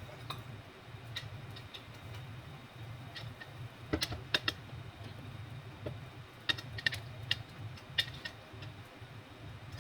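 Light clicks and taps of kitchen utensils against cookware, coming in irregular clusters, over a steady low hum.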